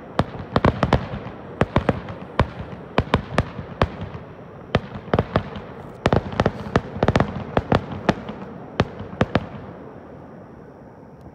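Aerial fireworks shells bursting, dozens of sharp bangs in quick succession, some in rapid clusters. The bangs stop about nine and a half seconds in, leaving a fading rumble.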